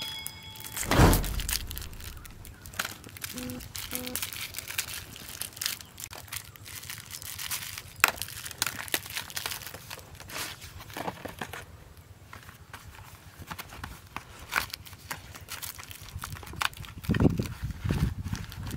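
Disposable plastic lighters clicking and clattering as they are pulled out of their plastic tray and dropped onto a pile on cardboard, with plastic packaging crinkling. A heavier thump comes about a second in.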